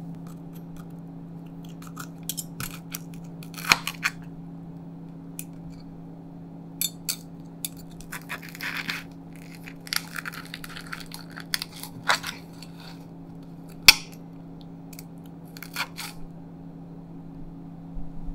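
Knife and fork scraping and clinking on a ceramic plate while cutting a charred piece of chicken, with scattered sharp clinks, the loudest about fourteen seconds in. A steady low hum runs underneath.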